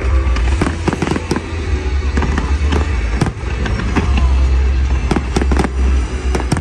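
Fireworks show: a rapid string of sharp bangs and crackles over a continuous deep rumble.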